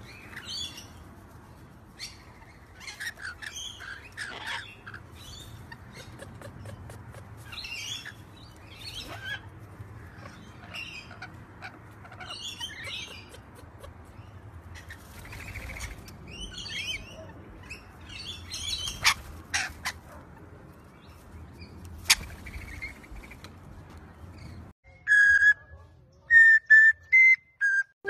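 Rainbow lorikeets chattering: many short, high, scratchy calls in quick irregular succession. Near the end the sound cuts to a few loud, clear whistled notes.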